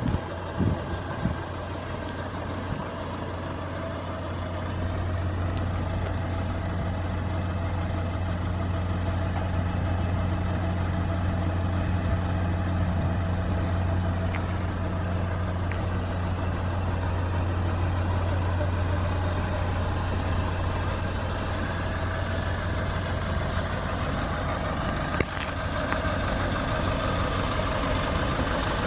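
Nissan NV350 Caravan's 2.5-litre diesel engine idling steadily, with a few knocks near the start and a sharp click near the end.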